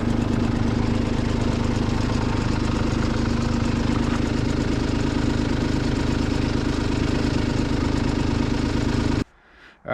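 Kubota B2650 compact tractor's diesel engine running steadily at an even speed. The sound cuts off suddenly near the end.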